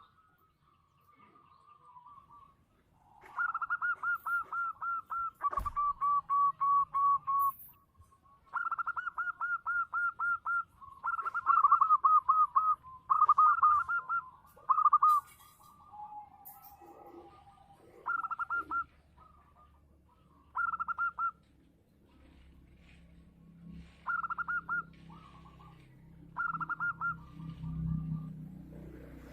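Zebra dove (perkutut) singing: phrases of rapid staccato cooing notes, long runs in the first half and shorter bursts later. A low rumble comes in near the end.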